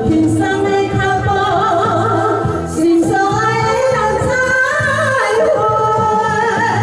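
Women singing karaoke into handheld microphones over an amplified backing track with a steady beat.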